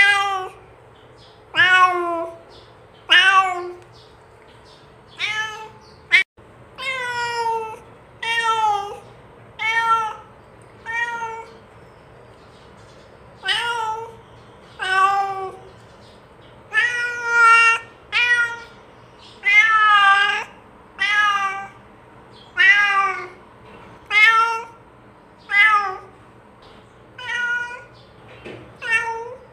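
Domestic cat meowing over and over, about one meow every second or so, each a drawn-out call that rises and then falls in pitch: a cat calling to another cat. A single sharp click about six seconds in.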